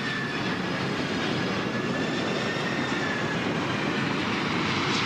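FedEx cargo jet's engines passing low overhead: a steady wash of jet noise with a thin high whine that slowly falls in pitch.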